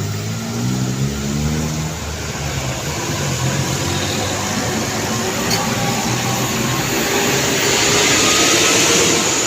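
Large diesel truck engine pulling away with the pitch stepping up in the first couple of seconds, then tyre and engine noise swelling as traffic passes close and peaking near the end.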